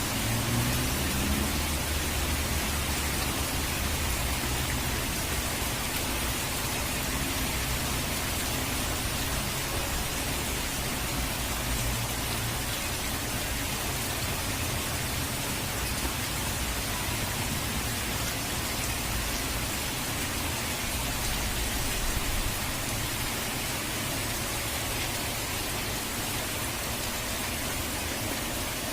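Steady heavy rain: a dense, even hiss of falling water with a low rumble underneath that swells and eases.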